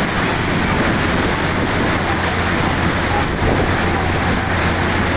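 Floodwater spraying and rushing along the side of a bus as it drives through water covering the road: a steady, even splashing hiss over a low, steady engine hum.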